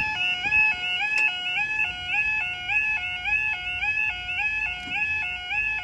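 Level crossing audible warning alarm sounding its two-tone yodel, stepping between a low and a high tone about twice a second while the barriers lower. A sharp click is heard about a second in.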